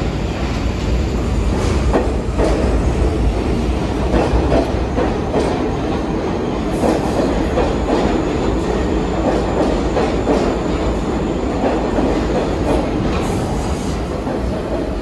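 R62 subway train pulling into an underground station, its cars running past with a steady rolling noise of steel wheels on rail and repeated clicks as the wheels cross rail joints.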